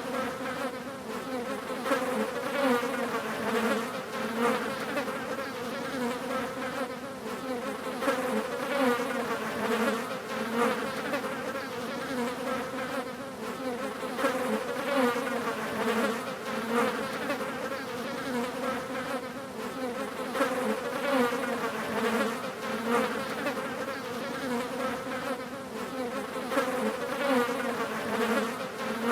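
Several flies buzzing continuously, a wavering hum that keeps swelling and fading as they fly about.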